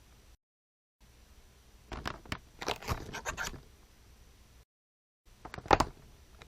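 Stiff card stock handled in two separate takes. First comes a quick run of crackling snaps and scrapes lasting about a second and a half. After a short gap there is one loud, sharp snap of the card near the end.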